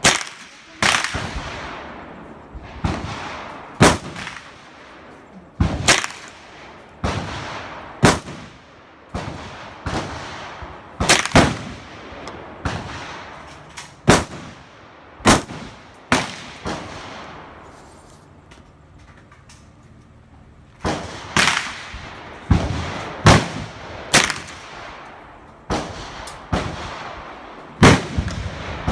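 Gunshots at a shooting range: a long string of single sharp shots, roughly one a second and sometimes two in quick succession. Each shot is followed by a short fading echo, and there is a pause of about three seconds a little past the middle.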